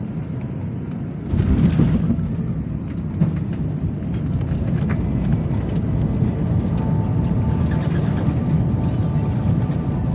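Jet airliner engine noise, a heavy steady rumble that swells about a second in and stays loud, with a faint whine in the second half.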